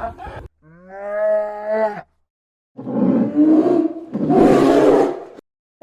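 Animal calls: one clear pitched call lasting about a second and a half, then, after a short gap, two longer, loud, rough and raspy calls.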